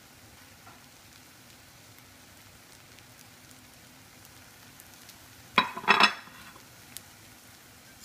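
Omelet frying in a pan with a faint, steady sizzle. About five and a half seconds in come two quick, loud scrapes of a slotted metal spatula against the pan.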